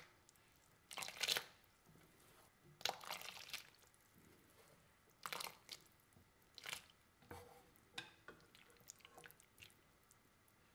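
Cooked noodles being dropped from a slotted spoon into a glass bowl of cold water and stirred with chopsticks: a series of short wet splashes and sloshes, about half a dozen, with lighter scattered clicks and drips near the end.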